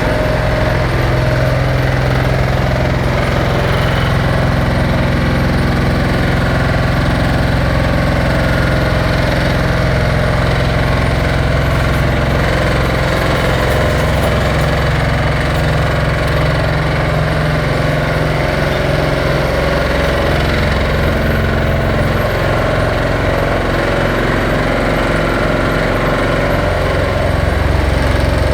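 Heavy construction machinery running loudly and steadily at close range: a diesel engine with a fast, continuous rattling vibration, growing a little louder near the end.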